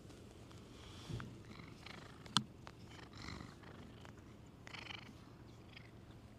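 Domestic cat purring steadily right at the microphone, its fur brushing and bumping against the camera in rustling patches, with one sharp click about two and a half seconds in.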